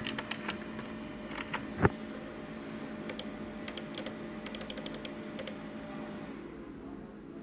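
Scattered clicks of a computer mouse and keys, some in quick runs, stopping after about five and a half seconds, over a steady low hum.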